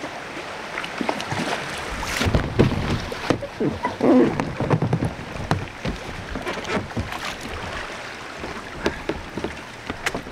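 Sea water sloshing and splashing around a kayak, with many short knocks and clicks that are busiest in the first half.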